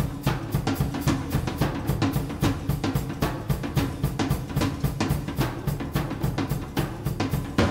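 Music soundtrack with a fast, steady drum pattern of kick and snare over a low sustained bass, closing on a louder hit near the end.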